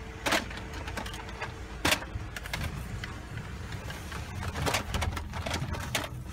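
Scattered plastic clicks and knocks of a Nerf blaster being lifted and handled inside a car, over a low steady rumble.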